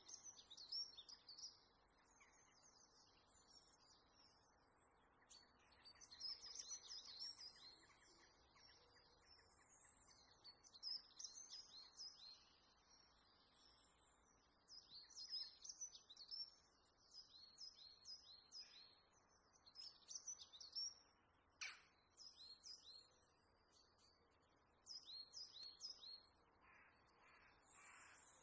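Faint small birds chirping in repeated quick bursts of twittering, with a few harsher, crow-like calls near the end.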